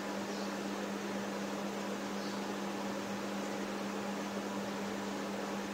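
Steady low electrical hum over an even hiss of room noise, with faint marker strokes on a whiteboard about half a second and two seconds in.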